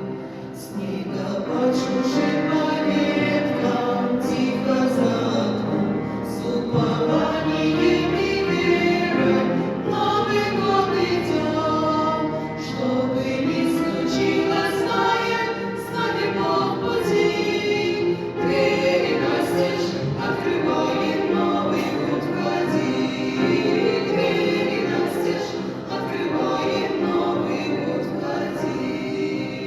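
Women's vocal ensemble singing a song together in several voices.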